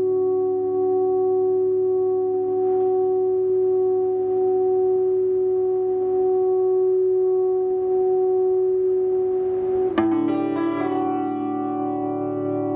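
Electric guitar through a small amplifier holding a steady, droning chord that does not fade. About ten seconds in a new chord is struck sharply and rings on.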